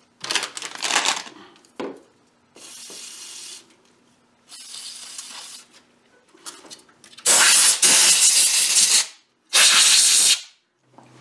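Pressurized spray hissing from a nozzle into a mower's wiring-harness connector to clean it out. Two quieter short hisses come first, then two loud blasts of about two seconds and one second near the end. The plug is handled with some light clatter at the start.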